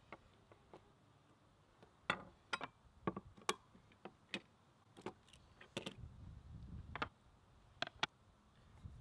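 Sharp clicks and knocks of hand work at a wooden cutting board, about a dozen spaced irregularly: tin cans handled and opened with a hand can opener, and a chef's knife striking the board. A short low rumble comes about six seconds in.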